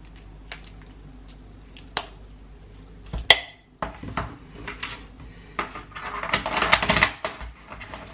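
A metal spoon clinking and scraping against a cooking pot while cooked food is dished out of it into a plastic container. There is one sharp knock about three seconds in, and a busy run of scraping and clatter near the end.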